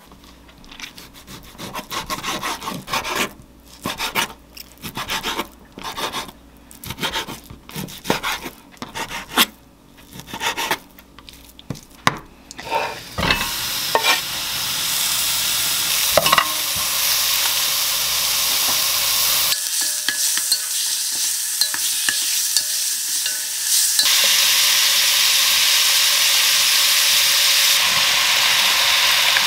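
A kitchen knife chops in quick, uneven strokes on a wooden cutting board. About 13 seconds in, beef cubes are tipped into a hot pot and begin sizzling steadily. The sizzle grows louder about two-thirds of the way through as sliced mushrooms, onion and potato are stir-fried with the beef.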